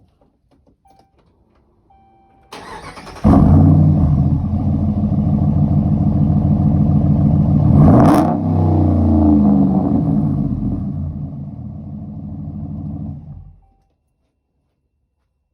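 A 5.7 Hemi V8 pickup with a muffler delete being started and run: the starter cranks briefly about two and a half seconds in, and the engine catches with a loud flare and runs at a fast idle. About eight seconds in there is a short rev that drops back, and the engine settles lower before being shut off suddenly near the end.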